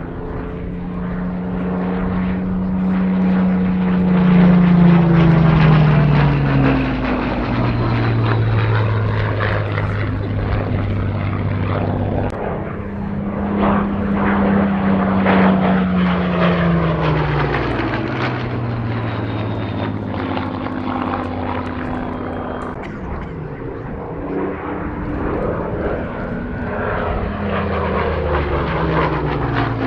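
Supermarine Spitfire's Rolls-Royce Merlin V12 engine in a low display pass, a loud steady drone whose pitch drops sharply as the aircraft goes by. This happens about five seconds in and again about sixteen seconds in, with the note rising and falling once more near the end.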